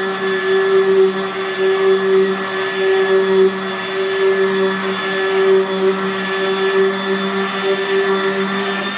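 Random orbital sander running steadily at one even pitch while sanding walnut veneer, grinding out 150-grit scratches on a door panel.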